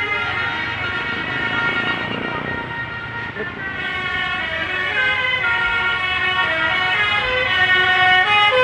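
Bus telolet horn, a set of multi-tone horns playing a tune: a held chord at first, then stepping through changing notes from about four seconds in.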